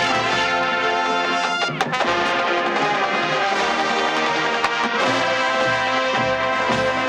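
Marching band brass section playing sustained, loud chords, with a brief break in the sound about two seconds in. Regular low drum beats join about five seconds in.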